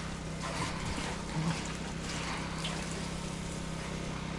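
River water flowing steadily, with a faint steady low hum underneath.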